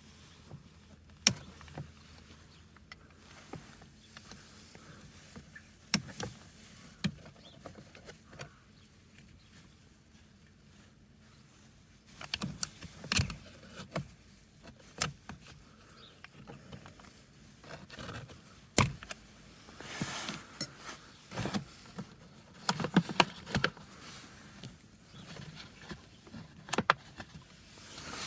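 Hand work on a car's 12V battery fittings: scattered sharp clicks, taps and knocks of metal parts and tools being handled, with stretches of scraping and rustling. The sharpest click comes about a second in and another near the two-thirds mark.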